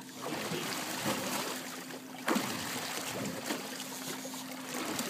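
Choppy water sloshing against a boat's hull, with wind on the microphone and a faint steady hum underneath. A single sudden thump about two seconds in.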